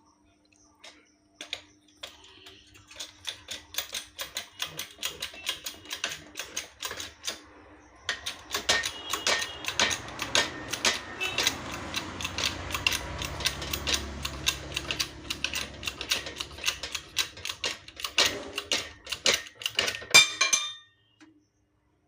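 Rapid, repeated light hammer taps on metal, knocking the motor shaft out of a table fan. The taps start sparse, then come several a second, with the loudest strikes near the end before they stop.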